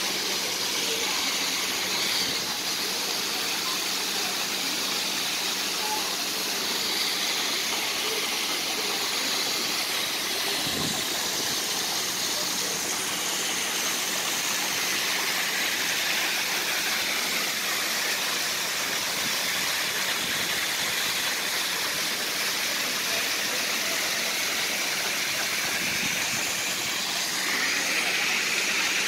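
Swimming-pool fountain jet spraying and splashing onto the water surface: a steady rushing hiss, with a faint steady hum under it.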